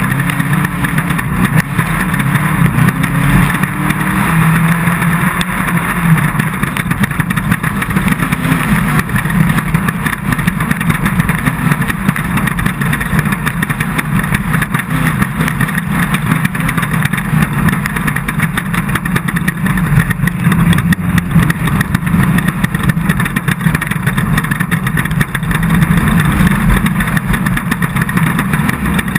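Off-road race car's engine running hard, its pitch rising and falling as it is worked, with constant rattling and knocks from the car over rough ground.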